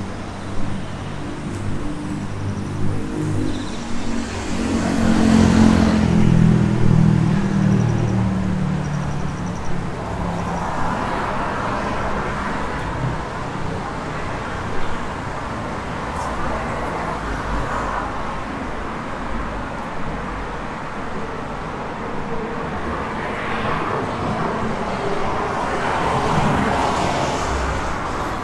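Road traffic: a motor vehicle's engine passes close, loudest about five to seven seconds in, then fades into a steady traffic hiss that swells again briefly near the end.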